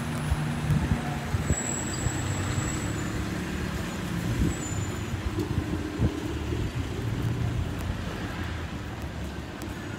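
Street traffic: vehicle engines running as a steady low hum, with a few short knocks.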